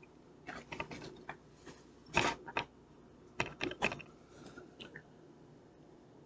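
Scattered light clicks and knocks from an object being handled, in small clusters, the loudest a couple of seconds in, dying away after about five seconds.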